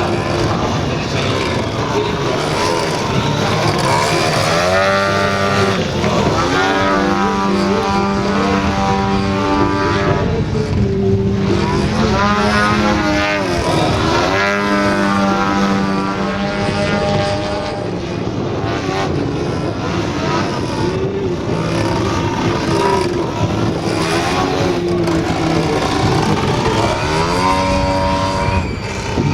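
Desert Aircraft DA-170 twin-cylinder two-stroke petrol engine of a large-scale RC Sukhoi Su-29 model running hard through aerobatics, its pitch swooping down and back up several times as the throttle is chopped and reopened.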